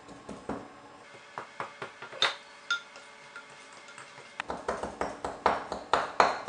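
Wooden spoon knocking and scraping against a ceramic mixing bowl while creaming butter and sugar by hand. Scattered knocks come first, a couple of them ringing with a short ping. From about halfway through, the stirring turns into rapid knocking, several a second.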